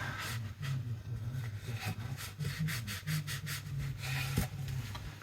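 A rag wiping down an air compressor, rubbing in quick repeated strokes, with a single light knock a little past four seconds in.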